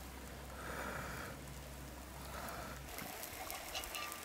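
Small stream trickling faintly over rocks: a soft, steady water hiss, with a few faint clicks near the end.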